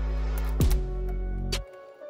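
Background music: sustained low synth and bass notes with drum hits, the bass dropping out near the end.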